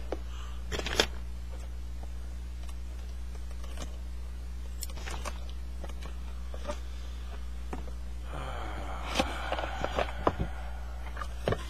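Cardboard box being handled and opened by hand: scattered taps and scrapes, then a longer sliding scrape of cardboard about eight seconds in, with a few sharper knocks. A steady low electrical hum sits underneath.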